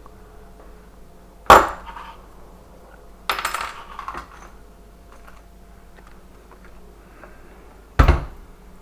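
Hand tools and metal hardware knocking and clanking during lock work: a sharp strike, a short rattling clatter, then another sharp strike.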